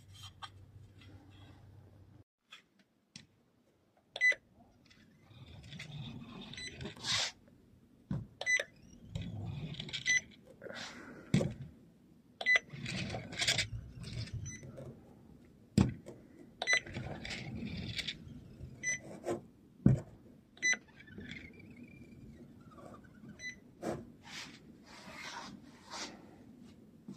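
DOERSUP Smart M20 handheld inkjet marking printer passed again and again across a speckled fibre ceiling tile. Its rollers rub along the surface for a second or two on each pass, with sharp knocks and short high beeps between the passes.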